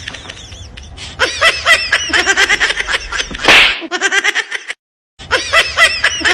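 Rapid, repeated laughter, with one short, loud noisy burst about three and a half seconds in. The sound cuts out completely for about half a second a little later.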